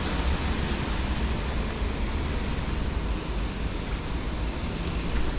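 Steady rain, heard as an even hiss with no breaks.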